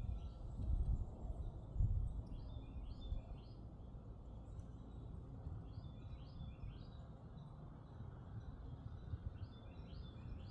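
Wind gusting on the microphone, with a songbird repeating a short chirping phrase several times.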